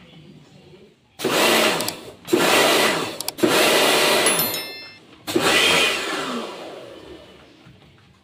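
Portable pressure washer spraying the air conditioner's indoor coil in four bursts as its trigger is squeezed, the motor running under the hiss of the water jet. The last burst dies away slowly.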